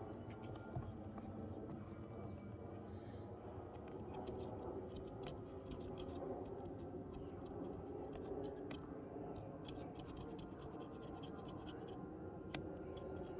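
Hand carving tool scraping and cutting into wood in a continuous run of quick short strokes, with small ticks as chips come away.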